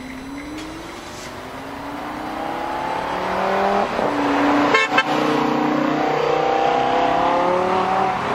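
Lamborghini Huracán's V10 engine accelerating hard, getting louder and rising in pitch through the gears. The pitch breaks at upshifts about four and five seconds in, with a brief crackle at the second, then climbs again.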